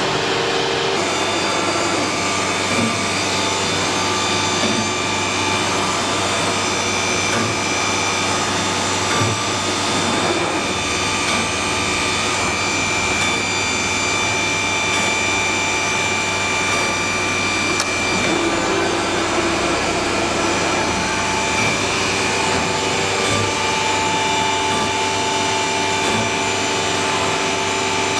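CNC panel-cutting machining centre with automatic panel feeding running: a steady, dense machine noise with several steady whining tones, shifting a little in pitch now and then.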